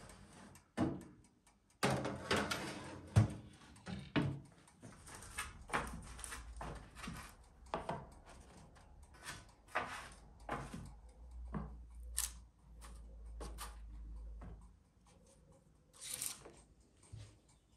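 Irregular taps, clicks and light scrapes of hands working at a metal baking tray lined with parchment paper, as rounds of cookie dough are laid on it and baked cookies are lifted off. A faint low hum runs under the middle part.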